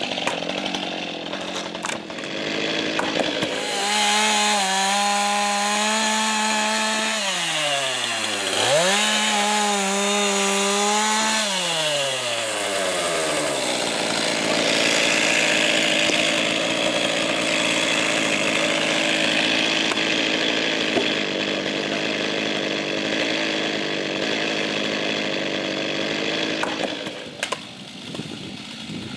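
Two-stroke chainsaw revving high, dropping back briefly and revving again, then cutting through a log with a steady, noisy whine under load for about thirteen seconds. Near the end the saw stops and a few sharp knocks follow.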